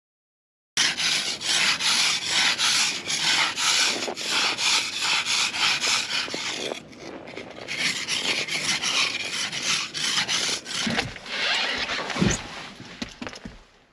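Ice scraper rasping frost off a truck's windscreen in quick repeated strokes, about three a second, with a short break about halfway through. Near the end the scraping gives way to a few knocks and one heavier thump.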